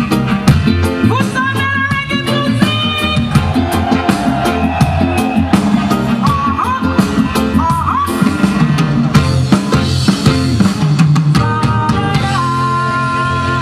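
Live reggae band playing on stage: drum kit, bass and keyboards keep a steady beat while a singer sings over them. Near the end a held note wavers.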